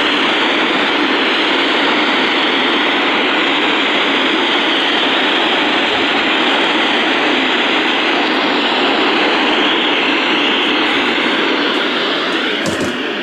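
Steady loud static hiss from a weather radio receiver, the broadcast voice dropped out mid-sentence as the signal is lost; a short pop near the end as the station comes back.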